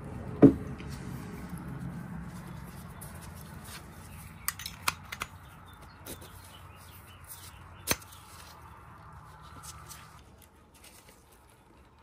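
Metal clicks and clacks of a Zippo lighter's case and insert being handled: one sharp clack about half a second in, a quick run of lighter clicks a little before the middle, and one more click later.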